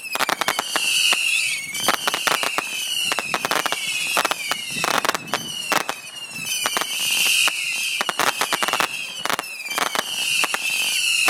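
Saturn missile battery firing: a dense, rapid run of sharp cracks and pops, with whistling shots, each one dropping slightly in pitch, following one another about once a second.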